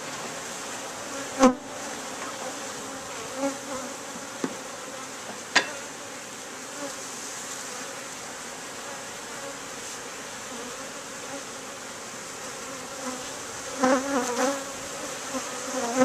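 Swarm of Italian honeybees buzzing steadily around an open top-bar hive, with a couple of sharp knocks on the wooden bars.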